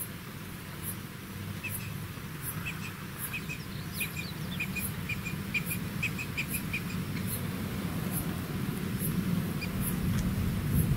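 A bird chirping in a quick run of short notes, several a second, for about five seconds. Behind it a faint high tick repeats about once a second over a steady low rumble.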